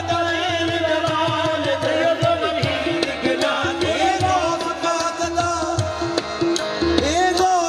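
Live Sufi devotional song: a voice singing through a microphone and PA over steady drum beats, with a held drone tone beneath.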